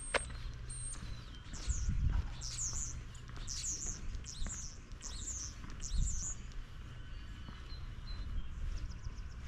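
A small songbird chirping: a quick run of high, downward-sliding chirps lasting about four seconds, starting about two seconds in. A couple of dull low thumps sound underneath.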